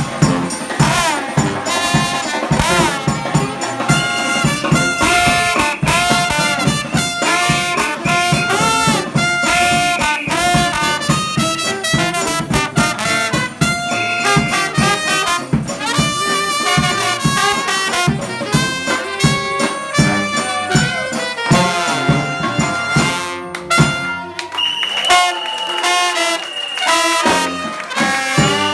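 A New Orleans-style brass band playing: trumpets and trombones carry the melody over a steady drum beat and tuba. Near the end the horns hold a long high note.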